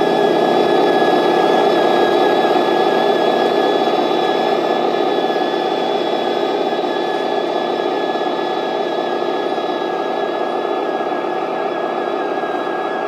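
Radio-controlled MAZ-537 model heavy truck driving slowly on gravel with a loaded trailer. It makes a steady engine-like running sound with a thin, slightly wavering high whine from the drive, easing off gradually as it moves away.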